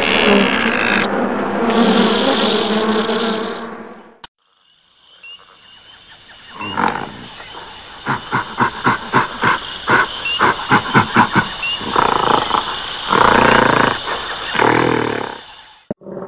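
Music that cuts off abruptly about four seconds in. After a moment's hush, a jungle soundscape of repeated high chirps over a steady hiss begins. Over it come a run of rapid rhythmic grunts and then long roars of a large beast, like a dinosaur, near the end.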